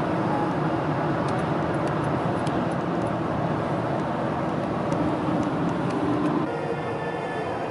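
Steady road and engine noise of a car driving at highway speed, heard from inside the cabin, with a few light ticks. The noise changes character about six and a half seconds in.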